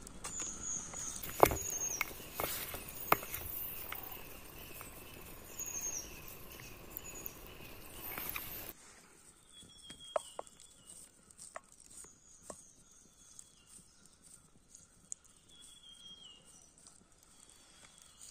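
Faint outdoor ambience with a bird giving short, high, slightly falling chirps again and again, and a few light clicks and taps of hands handling food and sticks in the first half. The background hiss drops quieter about halfway through.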